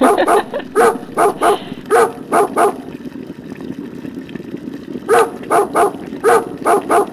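A dog barking in quick runs of short, sharp barks, with a pause of about two seconds in the middle before the barking starts again.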